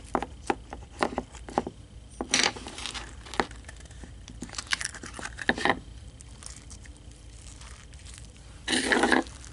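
Sticky green slime being kneaded and pulled by hand in a plastic tub, making a run of small wet crackles and clicks, with a louder half-second squelch near the end. The slime has just had contact solution worked in to firm it up.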